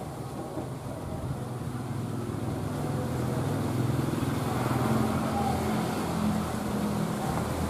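Diesel locomotive's engine running as a train approaches, a low steady hum growing louder and peaking about five seconds in.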